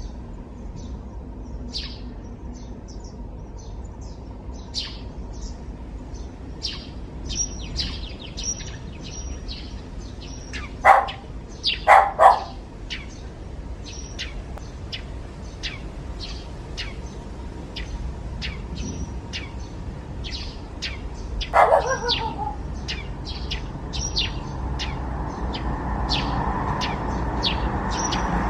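Wild birds chirping repeatedly outdoors, with a dog barking once, then twice in quick succession a second later, and once more about ten seconds after that. A passing vehicle's noise rises near the end.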